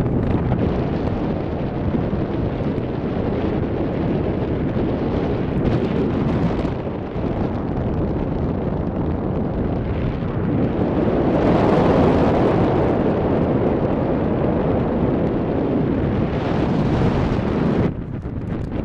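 Wind buffeting the microphone of a camera carried on a paraglider in flight: a loud, steady rushing, louder about twelve seconds in and dropping briefly near the end.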